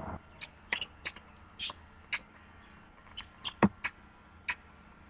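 Scattered sharp clicks and taps, about a dozen at uneven intervals, with one heavier knock about two-thirds of the way through.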